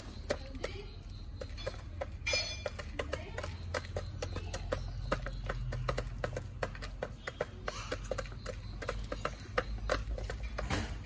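Chickens pecking feed from a plastic feeder pan and the ground: a quick, irregular tapping of beaks, several pecks a second.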